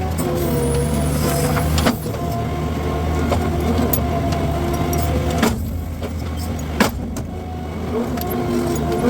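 Skid steer with a brush cutter attachment running steadily at working speed, with a few sharp cracks or knocks about two seconds in and again near six and seven seconds.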